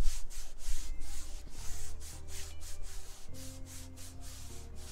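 An isopropyl alcohol pad rubbed back and forth over a Toyota RAV4's textured plastic rear bumper, in quick swishing strokes of about four a second. The surface is being cleaned with alcohol before an adhesive protector goes on.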